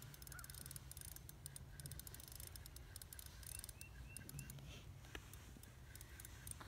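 Near quiet: a low wind rumble with faint scattered ticking, and three or four short faint bird chirps about halfway through.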